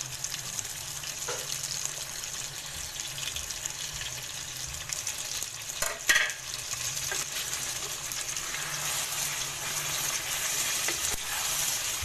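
Chicken, potato and yogurt masala sizzling in hot oil in a pan while a slotted spatula stirs it, with a sharp knock of the spatula against the pan about halfway through.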